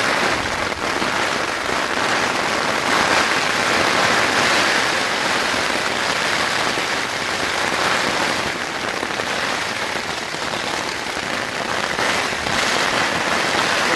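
Steady rain pattering on a tarp overhead, a dense even hiss of drops.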